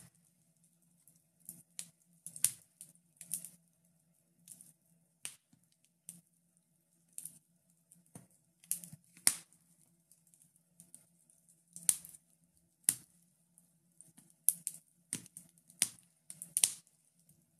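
Wood fire crackling, with irregular sharp snaps and pops at uneven intervals over a faint steady low hum.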